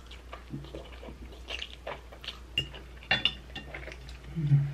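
A person eating spaghetti: a fork clicking against a plate and chewing of a hot mouthful, with a short hummed "mm" near the end.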